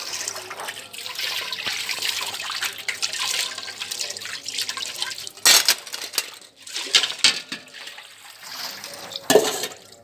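Steel dishes being washed by hand: water splashing as it is scooped from a bucket and poured over them, with metal utensils clattering sharply against each other a few times in the second half.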